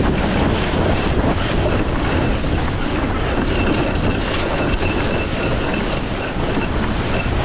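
Wind buffeting the microphone and water rushing past the hull of a sailing yacht under way, a dense, steady rumble, with a faint high whistle over the second half.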